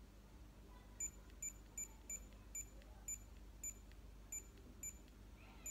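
Tamagotchi virtual-pet toy giving short, high-pitched electronic beeps as its buttons are pressed, about ten beeps at uneven half-second spacing starting about a second in, while its clock is being set.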